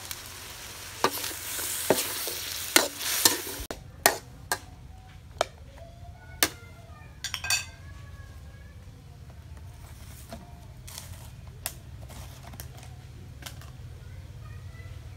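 Metal spoon stirring pumpkin and egg in a steel wok, with sharp clinks and scrapes of the spoon against the pan over a frying sizzle. The clinks stop about halfway through, leaving a steady low hum and the odd faint click.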